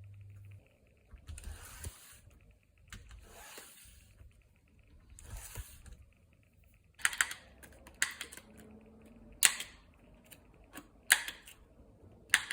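Close-up handling sounds of hand craft work on a wine-label fridge magnet: three soft swishing strokes, then five sharp clicks spaced a second or so apart.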